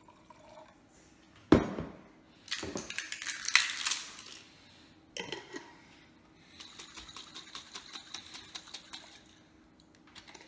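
Glass bottle and a glass jar of jerk paste handled on a kitchen counter: a sharp knock about a second and a half in, a couple of seconds of dense glassy clinking and rattling, another knock around five seconds, then a run of quick, even rattles, about five a second, for two to three seconds.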